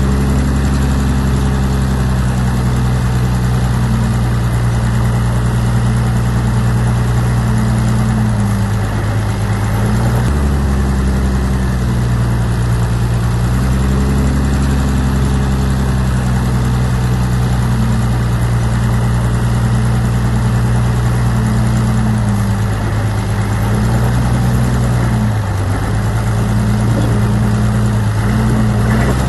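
Heavy diesel engine of an earthmoving machine running steadily. Its note drops and comes back twice, about a third of the way in and again near the end, as the load on it changes.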